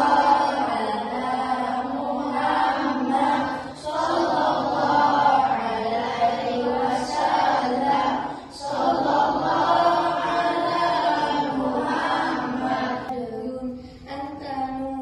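A group of children singing a sholawat (devotional song praising the Prophet Muhammad) together. They sing in phrases of about four seconds with short breaks between them, and the singing grows quieter near the end.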